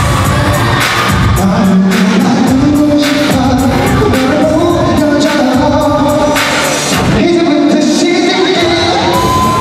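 Live pop music: a man singing through a headset microphone over a loud backing track with a steady beat.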